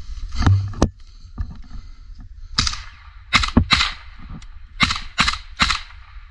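Suppressed AK-type rifle firing single shots: a couple of quieter cracks in the first second, then six sharp shots from about two and a half seconds in, each less than a second after the last.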